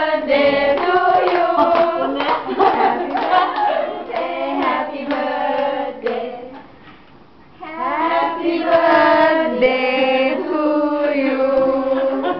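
A group of people singing a birthday song together, with hands clapping along. The singing breaks off about six seconds in and starts again about a second and a half later.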